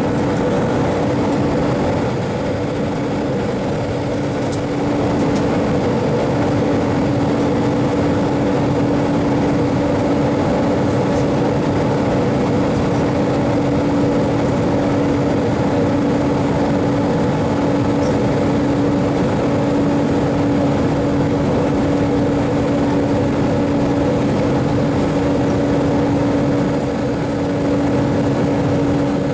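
Airliner cabin noise during the approach to landing: the jet engines and airflow make a loud, steady drone with a constant low hum running through it.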